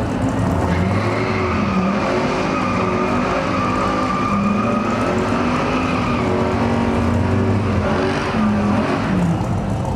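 V8 muscle-car engines at full throttle on a drag strip, their pitch climbing and dropping in steps.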